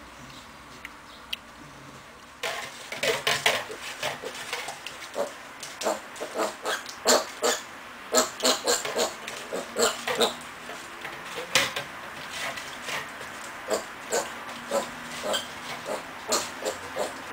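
Young wild boar piglet grunting in short grunts, a few a second, starting about two and a half seconds in after a quiet start, as it noses at its milk bottle.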